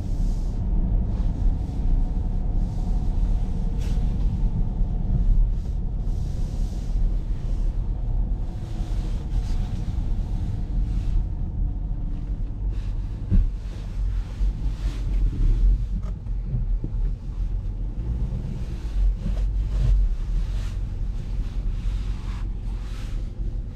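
Cabin sound of a Dodge Durango R/T's 5.7 Hemi V8 at low speed: a steady low rumble with tyre hiss on wet pavement.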